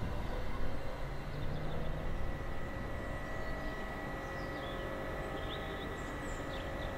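Low rumble of a steam locomotive working in the distance, easing a little over the first few seconds, joined by a faint steady high tone about two seconds in. Birds chirp briefly several times.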